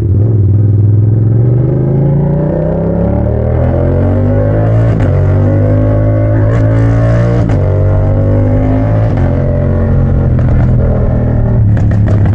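Yamaha MT-07 parallel-twin engine running loud through a straight pipe with no muffler. Its pitch rises slowly over the first few seconds, then holds fairly steady, with a few sharp cracks in the middle.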